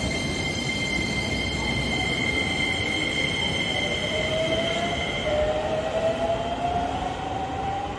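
Shin-Keisei electric commuter train pulling out and accelerating away, with a steady rumble of wheels on the rails. Two steady high whines stop about five seconds in, and a lower motor whine rises in pitch as the train gathers speed.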